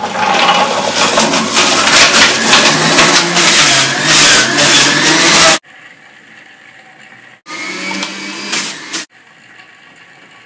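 Breville Juice Fountain centrifugal juicer running loudly as celery is fed in, cutting off suddenly about five and a half seconds in. After that, a shorter, quieter whirring sound.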